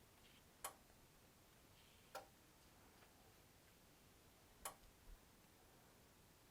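Near silence, broken by three faint, short taps about a second and a half to two and a half seconds apart.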